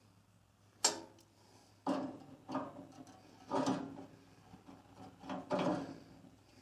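Parts of a bandsaw's blade-guide assembly being handled and fitted. There is a sharp click about a second in, then a run of separate clunks and rattles with a short ring after each.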